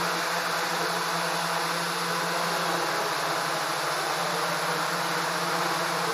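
Large octocopter's eight brushless motors and 12-inch carbon propellers holding a steady drone-like buzz in a hover.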